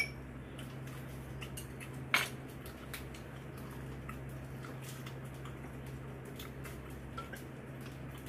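Eating at the table: utensils clinking against dishes, with a sharper clink at the start and another about two seconds in, and small scattered clicks and wet chewing sounds, over a steady low hum.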